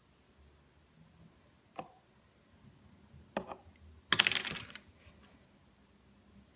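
Light clicks and taps of small cake-decorating tools being handled on a hard work surface. A short run of clicks comes a little after four seconds in and is the loudest sound.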